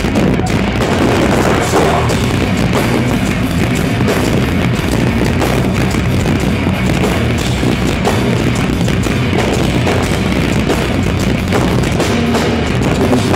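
Nu-metal band playing live at full volume: distorted guitars, bass and a pounding drum kit in a continuous dense wall of sound, heard from the crowd.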